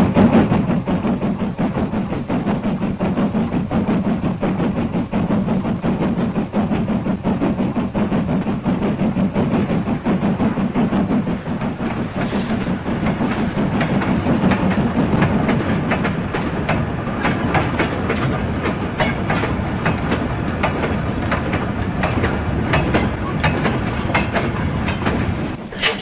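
A steam locomotive hauling a train of freight wagons: a steady, rhythmic running noise with the wheels clattering on the rails, growing brighter about halfway through.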